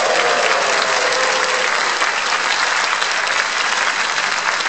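A large audience clapping and cheering wildly, with shouts and whoops over the applause in the first second or two.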